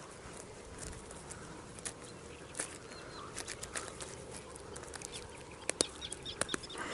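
Irregular light clicks and rustles of gloved hands working a small perch free of a lift net's mesh, coming thicker near the end.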